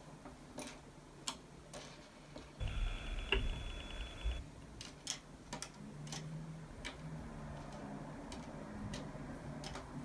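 Small plastic LEGO pieces clicking and tapping on a tabletop as they are picked up and sorted by hand, in scattered sharp clicks. About three seconds in, a low rumble with a faint high whine lasts just under two seconds.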